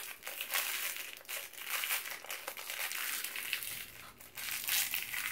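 Crinkly wrapper on a small L.O.L. Surprise accessory being crumpled and unwrapped by hand: an irregular, continuous crackling.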